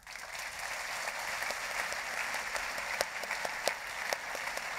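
An audience applauding: a dense, steady patter of clapping that starts abruptly, with a few louder single claps standing out about three seconds in.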